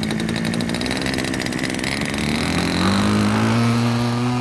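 Engine of a radio-controlled model Corsair warbird running at high power on take-off. About three seconds in, its note rises and grows louder, then holds steady.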